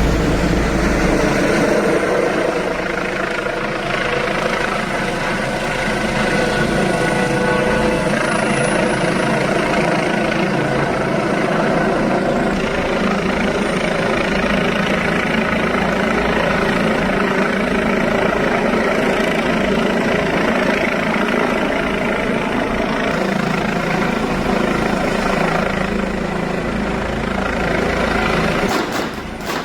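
Helicopter running steadily and loudly, its level dropping a little just before the end.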